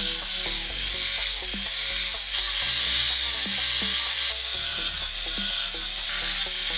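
Repeated back-and-forth strokes of hand sanding or filing, an abrasive rubbing on the knife workpiece with a rasping hiss, over background music.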